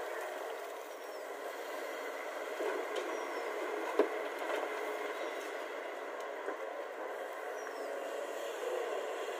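JCB tracked excavator's diesel engine running steadily while it loads a dump truck, with one sharp knock about four seconds in as the bucket empties earth into the truck's steel bed.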